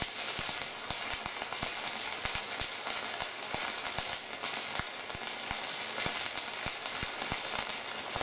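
Stick (MMA) welding arc from a MegaTec 160EF inverter, running a vertical seam with a coated electrode woven in a Z pattern. It makes a steady frying crackle, dotted with frequent sharp pops.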